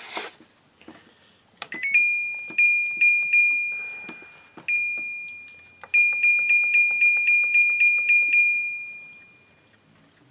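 Electronic beeping from the control panel of an LG dual inverter window air conditioner as it is powered up and set: a few clicks, then a high beep re-struck in quick pulses over three runs, fading out near the end.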